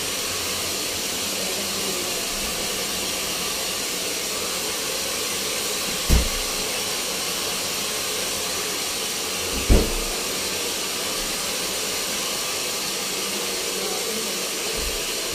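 Hair dryer blowing steadily, an even hiss, with two dull thumps about six and ten seconds in.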